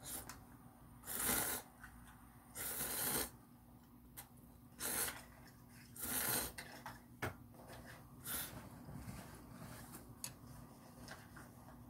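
Ramen noodles being slurped in four loud drawn-in slurps, each about half a second long, over the first six seconds or so. A few light clicks follow near the end.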